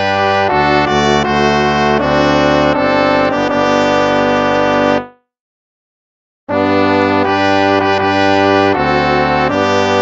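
Instrumental hymn music in slow, held chords. It stops about five seconds in, goes silent for a second and a half, then starts again.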